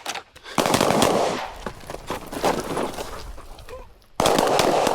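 Handgun fire in rapid strings, many shots in quick succession, starting about half a second in. The firing eases off, then comes back louder and denser near the end.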